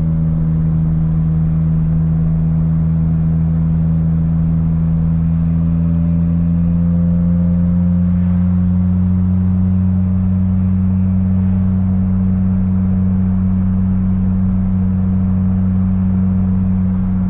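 Car engine running steadily while driving, a low hum whose pitch rises a little about halfway through.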